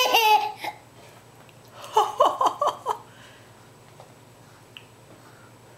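Toddler's fake laugh: a loud, high-pitched laugh ending within the first second, then a short run of quick, choppy laughing syllables about two seconds in, then quiet.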